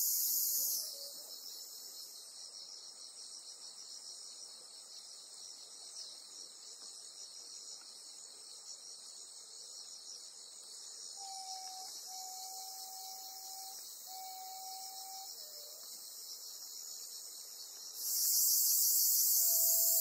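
High-pitched buzzing chorus of insects, loud for the first second, fainter through the middle and loud again near the end. A steady whistled note sounds three times in a row from about eleven to fifteen seconds in.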